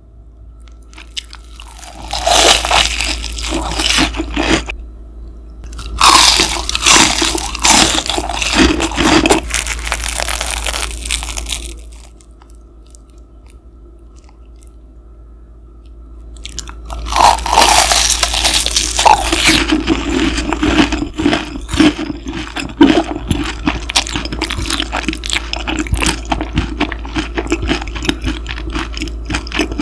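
Crisp crunching bites and chewing of deep-fried panko-breaded pork cutlet close to the microphone, in three spells with a lull of a few seconds in the middle. A steady low machine-like hum runs underneath throughout.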